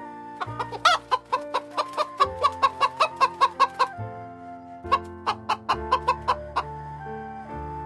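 Chicken clucking in two quick runs of short, sharp clucks, about four a second, over background music with held notes.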